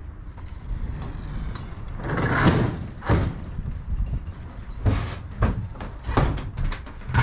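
Enclosed equipment trailer's rear door and ramp being handled with a loud metal clatter and rattle about two seconds in, then several heavy thuds of steps and gear on the trailer's hollow wooden floor.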